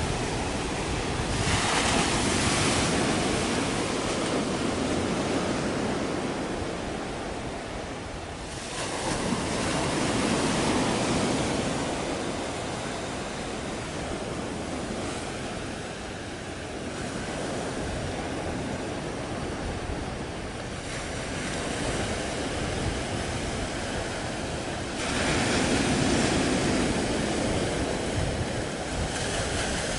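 Sea waves washing in with wind buffeting the microphone: a steady rush of noise that swells and eases every several seconds.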